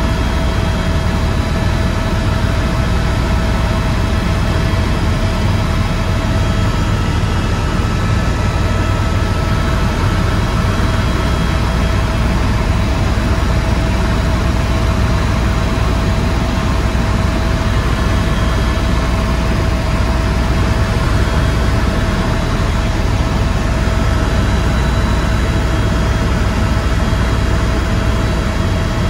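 Tour helicopter in level flight, heard from inside the cabin: a loud, steady low rumble from the rotor with a few steady whining tones from the turbine engine above it.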